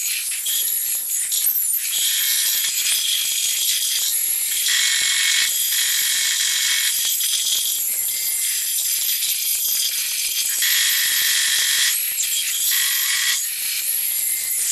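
Large crowd of spectators in a gymnasium making continuous noise, a dense high rattling that swells and drops back every few seconds.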